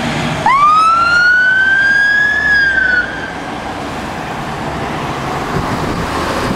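A fire engine's siren sounds a single wail about half a second in. It sweeps quickly up in pitch, keeps climbing slowly, then dips and cuts off about three seconds in. Road traffic noise carries on after it.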